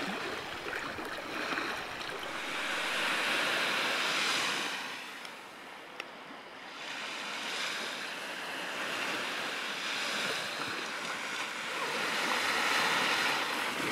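Small lake waves breaking and washing up a sand beach, the noise rising and falling in slow surges. A single brief click comes near the middle.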